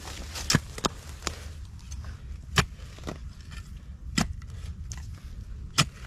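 A digging tool striking into the hard earth of a mound: about six sharp, irregularly spaced strikes, the loudest about two and a half seconds in.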